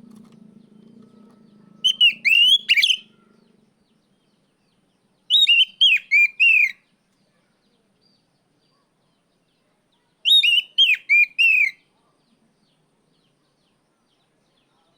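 Oriental magpie-robin (kacer) giving loud, clear whistled calls in the 'ngeplong' style: three bursts of four or five quick hooked notes, about two, five and ten seconds in, with silence between.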